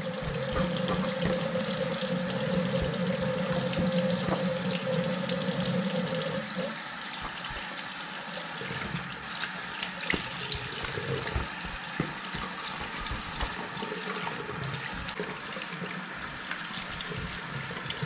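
Water running from a tap into a bathroom sink while hands splash it onto a face, with small splashes and drips. A steady hum under the running water stops about a third of the way through, and the water goes a little quieter after that.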